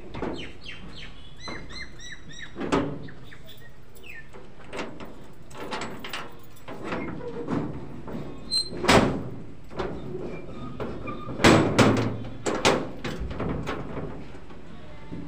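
Sheet-metal door with a sliding bolt and padlock being worked by hand: scattered metallic clanks, knocks and rattles, the loudest around nine seconds and twelve seconds in.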